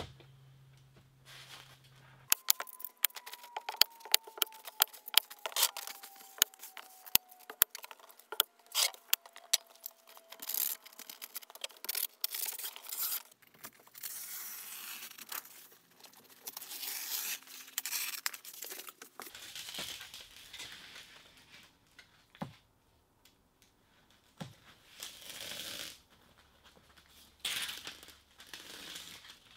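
A hand staple gun snapping again and again as vapor barrier sheeting is stapled to the wall. This gives way, about halfway through, to the crinkle and rustle of the sheeting being handled. Near the end come a couple of rasps of tape being pulled off a roll.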